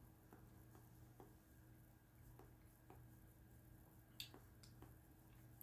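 Near silence with faint, irregular wet clicks of a mouth chewing soft, chewy licorice.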